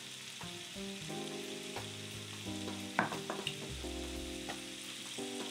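Sliced beef brisket sizzling on a hot tabletop grill pan with a steady hiss, over soft background music. There is a light knock about three seconds in.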